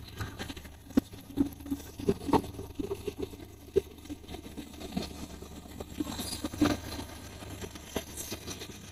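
Diesel-hauled passenger train rolling slowly past: the wheels click over the rail joints at irregular intervals, often in close pairs, over a faint low rumble.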